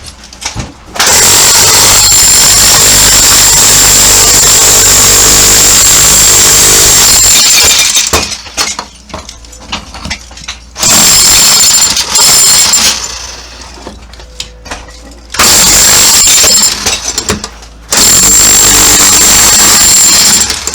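Electric hammer drill chipping bathroom wall tiles off, running in four long bursts, the longest about six seconds, with a steady high whine. Scattered knocks and clatter from the tile work come between the bursts.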